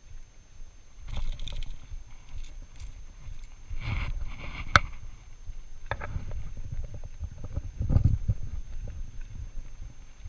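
Close handling noise as a fishing lure with treble hooks is worked free of the fronds of a dwarf fan palm: rustling and soft knocks, with one sharp click just under five seconds in.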